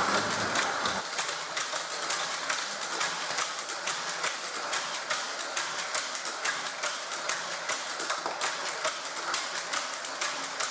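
Hot Wheels die-cast cars rattling along plastic Track Builder track, giving a quick, uneven run of light clicks and clatters several times a second over a hiss.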